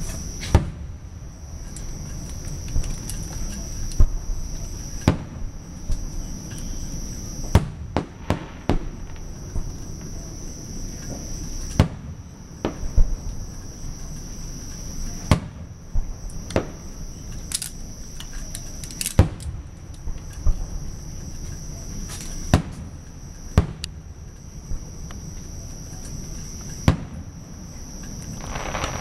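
Fireworks shells bursting: sharp bangs at irregular intervals, roughly one every second or two, some coming in quick clusters, over a steady high-pitched chirring of insects.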